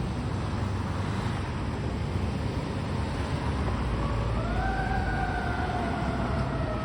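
Fire engine responding with a low engine rumble. About four seconds in its siren rises quickly in pitch, then slowly winds down.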